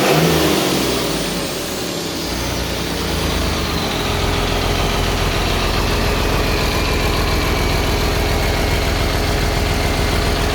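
Rebuilt Mercedes-Benz OM366LA six-cylinder turbo-intercooled diesel on a test stand, running with its valve cover off on its first run after a full rebuild. It eases down from a rev and settles into a steady idle about two seconds in, with a high whine that slowly falls in pitch.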